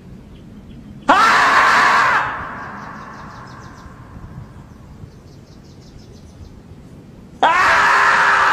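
Two loud, drawn-out screams, each about a second long and about six seconds apart, with a sharp rise at the start and an echo trailing off after each. This is the scream of the 'screaming marmot' clip, a human-like scream rather than a marmot's short whistling alarm call.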